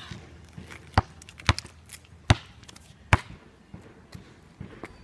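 Four sharp knocks, irregularly spaced about half a second to a second apart.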